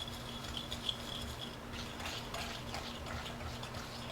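Faint clicking and scraping of a utensil against a bowl as butter, cream cheese and sugar are creamed together.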